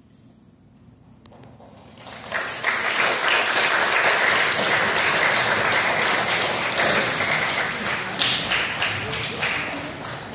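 Audience applauding, starting about two seconds in after a short pause and tapering off near the end.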